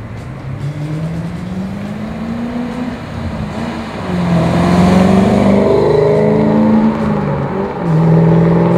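Supercharged 5.4-litre V8 of a 2007 Ford Mustang Shelby GT500, through its Flowmaster exhaust, accelerating on the road. The revs climb steadily, the sound gets louder about four seconds in, and near the end the revs dip briefly and pull again.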